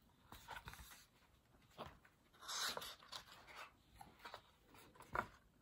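Faint rustle and soft clicks of a hardcover picture book's pages being handled and turned, with a brief paper swish a little over two and a half seconds in.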